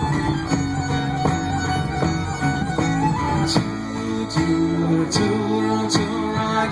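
Folk band playing an instrumental break: a fiddle carrying the tune over guitar, with a steady beat of sharp percussive hits coming in about halfway.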